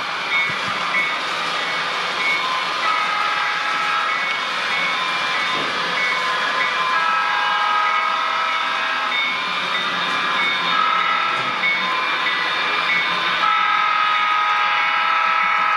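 Sound-equipped HO scale CN SD70 diesel model, its onboard speaker playing an engine rumble and a horn blown in the grade-crossing pattern: two long blasts, a short one, then a final long one. A bell dings steadily behind it.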